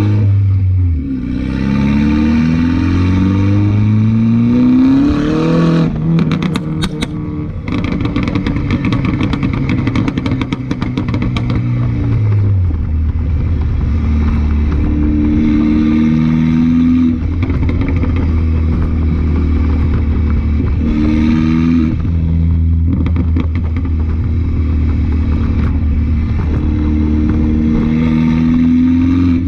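2015 F56 Mini Cooper S's turbocharged four-cylinder through a catless straight-pipe exhaust, accelerating with its pitch climbing. About six seconds in it lifts off and pops and crackles for several seconds as the revs fall. It then runs at low revs with a steady deep drone, swelling a few times under light throttle.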